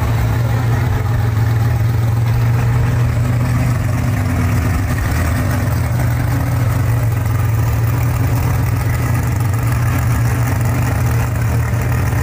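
Classic Ford Falcon sedan's engine idling as the car creeps forward at low speed: a steady, deep, loud rumble that stays even throughout.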